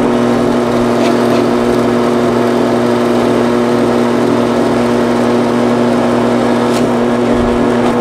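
Drill press running steadily with its bit boring a hole down into a wooden block, a steady motor hum under the noise of the cutting.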